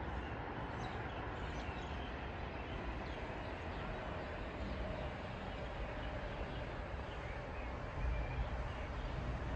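Outdoor street ambience: a steady low rumble with a few faint bird chirps.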